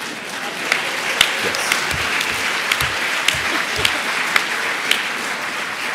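Audience applauding, swelling about half a second in and continuing steadily.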